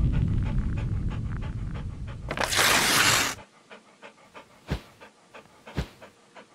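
Dog panting in a quick, even rhythm under a low rumbling whoosh that fades over the first two seconds. A short, loud rush of hissing noise comes about two and a half seconds in, then only the faint panting strokes remain, with a few sharper clicks near the end.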